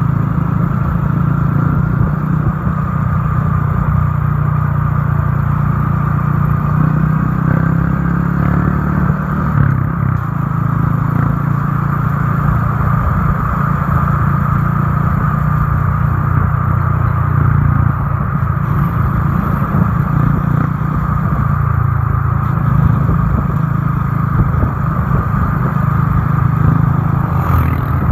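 Motorcycle running steadily while being ridden along a road, its engine noise mixed with wind and road noise.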